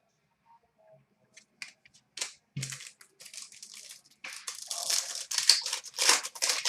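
Crinkling and rustling of plastic or foil packaging as hockey trading cards are handled, starting as a few scattered ticks and growing into dense crackling toward the end.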